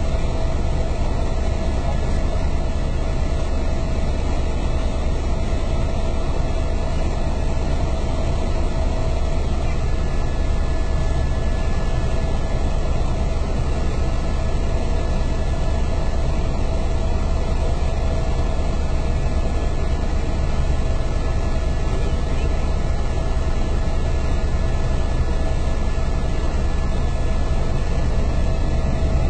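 Helicopter in cruising flight, heard from inside the cabin: a steady, loud drone of rotor and engine, heaviest in the low end, with a thin steady tone running through it.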